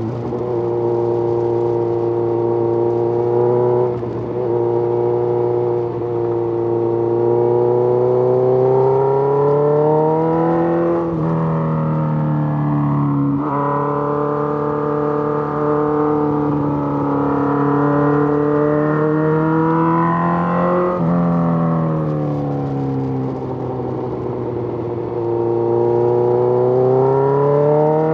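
Suzuki GSX-R1000 sport bike's inline-four engine running under way at moderate revs. Its pitch holds steady, climbs slowly and drops sharply three times as the revs rise and fall.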